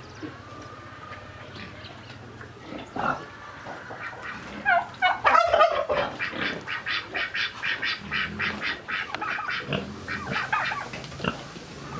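Chickens calling: a burst of loud calls about four seconds in, then a run of short, rhythmic clucks about three to four a second.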